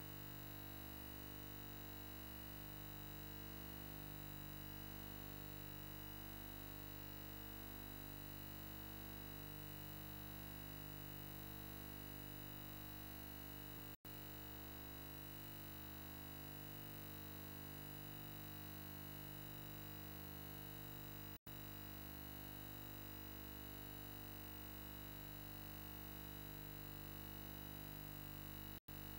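Faint steady electronic hum made of many held tones, swelling slowly every few seconds, cutting out abruptly three times for a split second.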